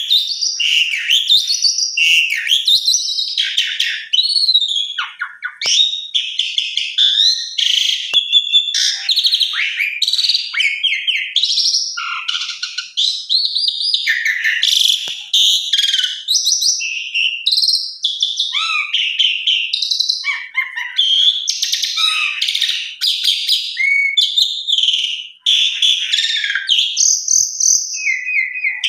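Asian pied starling singing a long, nearly unbroken, varied song of clear whistles, rapid chatter and harsh grating notes, pausing only briefly now and then.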